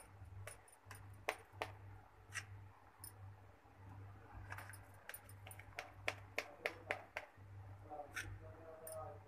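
Faint, irregular clicks and scrapes of a knife cutting through a steamed alu vadi cake, the blade ticking against the steel tin it sits in, over a low hum that comes and goes.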